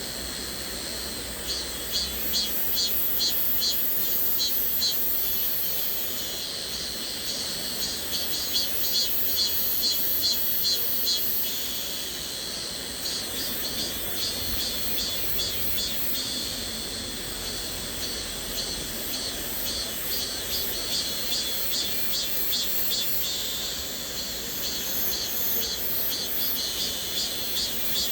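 Cicadas singing high-pitched, in a pulsing rhythm of about three beats a second that swells and fades every few seconds, over the steady rush of a flowing stream.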